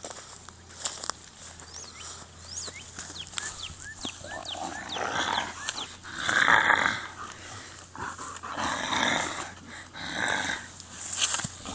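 German Shepherd dog growling in play, in several rough swells, loudest about six to seven seconds in.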